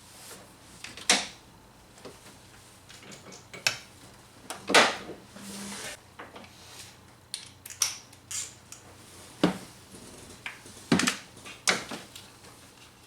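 Metal hand tools clinking and knocking in irregular sharp strikes, a few of them loud, as a spark plug is worked out of the engine with a socket and ratchet.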